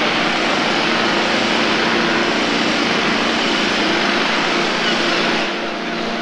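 Canal boat's motor running steadily with a low hum under a loud rushing noise, which eases off near the end while the hum carries on.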